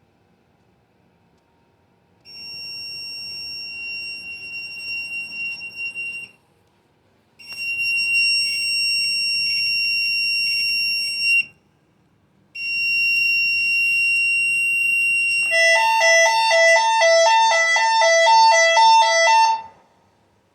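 Alarm sounder set off by a keyswitch panic button under test. It gives a steady high-pitched tone in three bursts of about four seconds with short gaps. It then switches to a lower two-tone alternating sound, changing about twice a second, for about four seconds before it cuts off.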